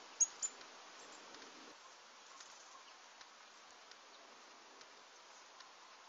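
Faint, high-pitched calls of small garden birds over a steady hiss, with two short sharp notes close together near the start and scattered thin ticks and peeps after.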